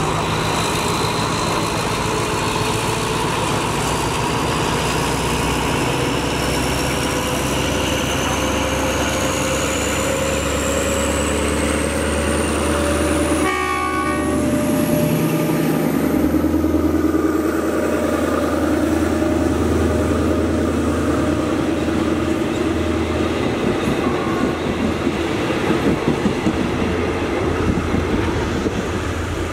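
Diesel locomotive passing close alongside on the next track, its engine running loud, with one short horn blast as it draws level about fourteen seconds in. A thin whine rises steadily in pitch through the first half.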